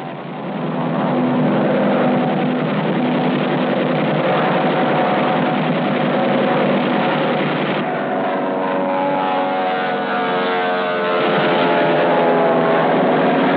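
Piston aircraft engines droning steadily, the tone shifting about eight seconds in.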